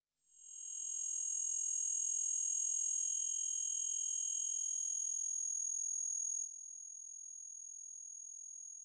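Electronic drone of several steady, very high-pitched tones held together, swelling in over the first second. About six and a half seconds in the lower tones cut off and it drops to a thinner, quieter high whine that begins fading near the end.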